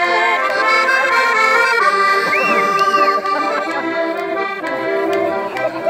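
Live button accordion music: a Piermaria chromatic button accordion playing a tune over held chords, with one high note held for over a second near the middle.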